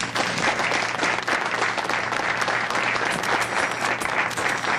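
A small group of people applauding: dense, steady clapping that starts suddenly.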